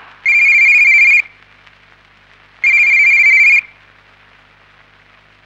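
Telephone ringing twice, each ring a warbling electronic tone about a second long, with a gap of about a second and a half between them.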